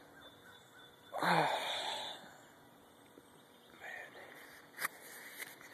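A person's loud, breathy vocal sound, about a second long, beginning about a second in, with a fainter one later and a sharp click near the end.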